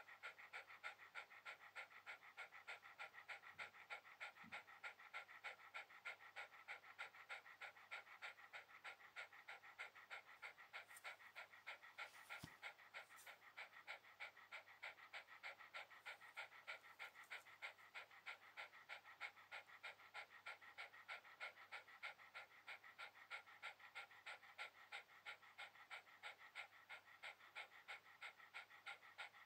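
Shiba Inu panting faintly in a quick, even rhythm, with one sharp click about twelve seconds in.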